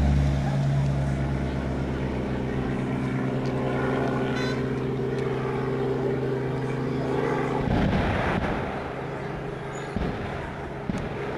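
A motor vehicle engine running steadily, its drone breaking up into rougher noise about eight seconds in. Two short sharp sounds come near the end.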